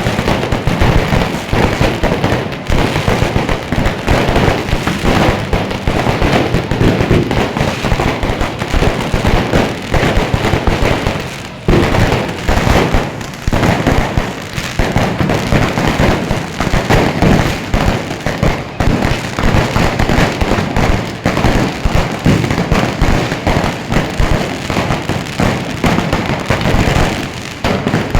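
Fireworks exploding continuously, many overlapping bangs and crackles in a dense, unbroken barrage.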